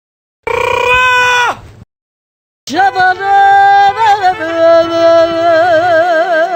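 Two comedy sound-effect clips in a row: a short bleat-like cry that drops in pitch as it ends, then a long held voice-like tone that starts wobbling in pitch about halfway through.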